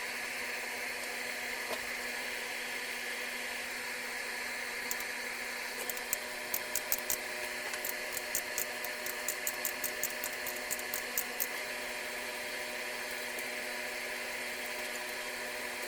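A small electric motor running steadily with a hum of several fixed tones. A run of quick, sharp clicks comes about six seconds in and lasts roughly five seconds.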